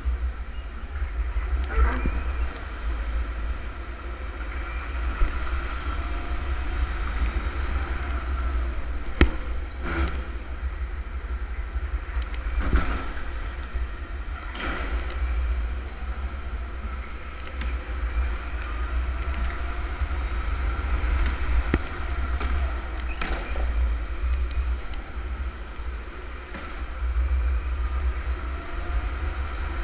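Electric go-kart driven hard around a track, heard from on board: a motor whine rising and falling with speed over a heavy low rumble of vibration and wind, with several sharp knocks along the way.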